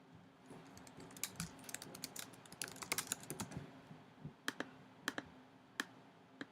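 Typing on a computer keyboard: irregular key clicks, a quick run of them in the first few seconds, then a few single taps spaced apart.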